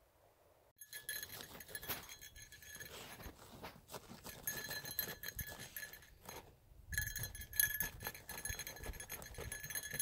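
A dog digging in dry dirt with its front paws: fast, scratchy scraping that starts about a second in and pauses briefly a little past halfway.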